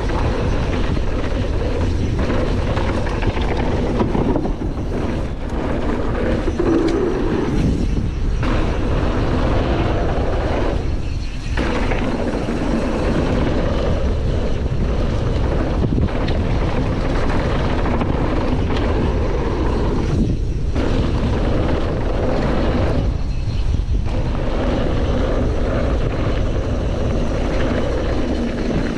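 Wind buffeting a chest-mounted action camera and the rumble and rattle of a Canyon Torque mountain bike riding fast down a dirt bike-park trail, with a few brief lulls.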